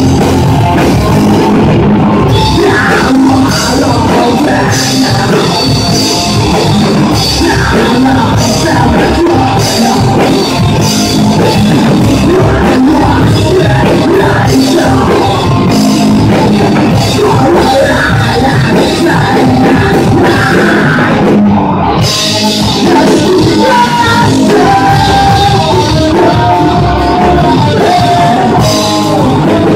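Live rock band playing loud on electric guitars, bass and a drum kit, with a short break about two-thirds of the way through before the full band comes back in.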